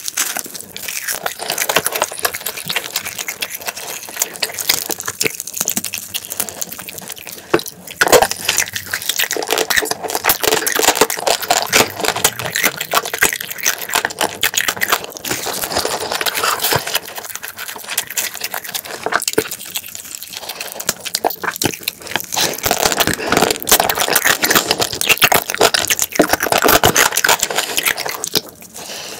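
Close-miked wet chewing and lip smacking of a laver-wrapped bite of fried rice and spicy marinated raw crab: a dense run of crackly, sticky clicks with brief pauses.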